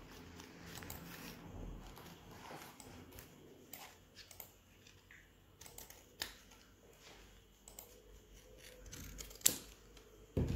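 Quiet scattered clicks and rustles of plastic drinking straws, a cardboard strip and paper being handled on a table, with a sharper click near the end.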